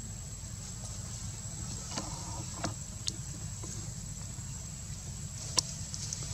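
Outdoor background: a steady low rumble with a constant thin high-pitched tone over it, and a few sharp clicks, the loudest about five and a half seconds in.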